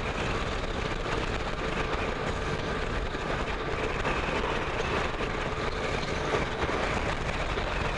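Yamaha Tracer motorcycle on the move: a steady rush of wind and road noise with the engine running underneath at an even pace.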